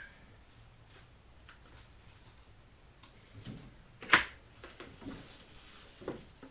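Trading cards being handled and shuffled through by hand: faint soft rustles and slides, with one sharp tap about four seconds in.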